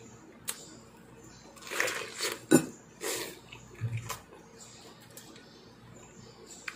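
Eating raw pineapple by hand: a string of short, wet slurping and chewing noises as the flesh is pulled off and sucked in, with one sharp click about two and a half seconds in.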